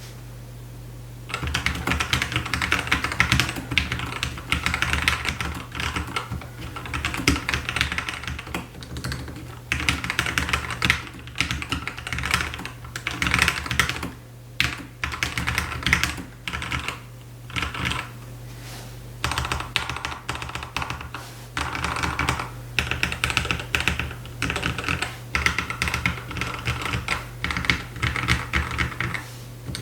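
Typing on a custom-built mechanical keyboard: fast runs of key clacks in bursts with short pauses, starting about a second in. A steady low hum sits underneath throughout.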